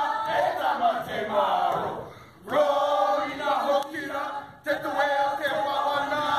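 Group of men chanting and shouting in unison in a Polynesian war-dance chant, in forceful phrases broken by two short pauses.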